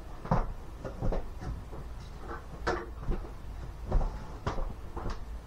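Someone rummaging off to one side: a string of irregular knocks and clatters, about eight in five seconds, as things are moved about and a drawer or cupboard is opened.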